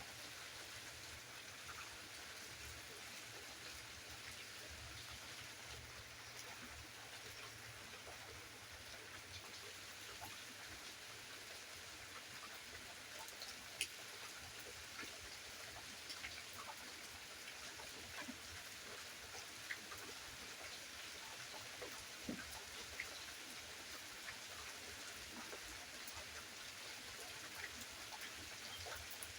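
Steady rain falling, an even hiss with scattered sharper ticks of single drops; the sharpest tick comes about 14 seconds in.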